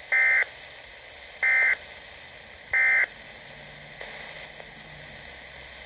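Three short bursts of SAME digital data tones from a Weatheradio Canada transmitter, about 1.3 s apart: the end-of-message code that closes the weather bulletin. Low radio hiss lies between the bursts.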